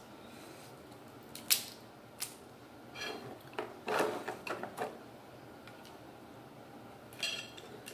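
King crab legs being snapped apart and picked at with a fork on the plate: sharp clicks and cracks of the shell, the loudest about a second and a half in, then a run of crackling and clatter a few seconds later.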